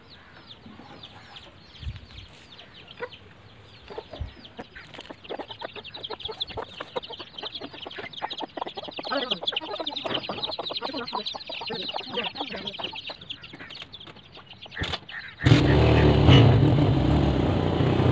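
Hen clucking and chicks cheeping in rapid short high peeps, growing denser midway. About fifteen seconds in, a motorcycle engine cuts in suddenly and loudly, running close by.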